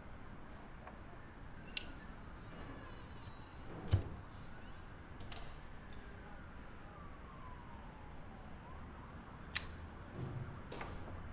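Quiet room with scattered handling noises: a thump about four seconds in, then a lighter flicked and lit a little after, and a few small clicks later on. Faint slow falling tones sound in the background.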